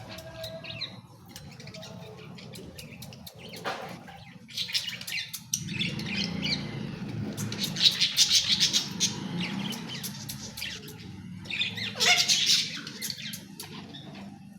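Pet parrot chattering and squawking in repeated bursts, loudest in the middle and again near the end.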